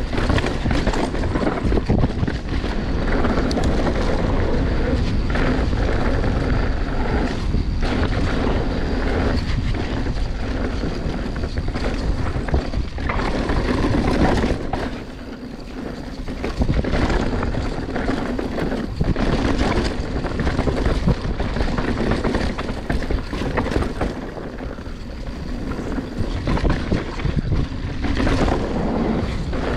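Mountain bike riding down a dirt trail: wind buffets the camera microphone over a steady rattle and clatter of the bike on the rough ground. The noise drops off briefly about halfway through.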